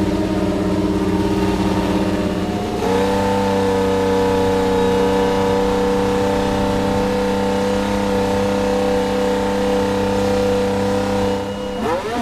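A Formula 1 1.6-litre V6 turbo-hybrid power unit running at a steady engine speed on a fire-up. Its pitch steps up slightly about three seconds in, holds, then rises as it is revved near the end.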